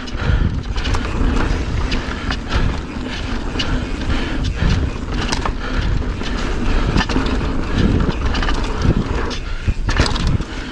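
2019 Pivot Firebird 29 mountain bike ridden down a rocky dirt trail: knobby tyres crunching over dirt and stones, with frequent rattles and knocks from the bike jolting over rocks, over a steady low rumble.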